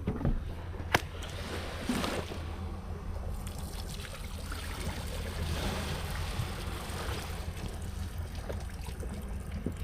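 Water lapping and trickling against a kayak hull over a steady low rumble, with a sharp click about a second in.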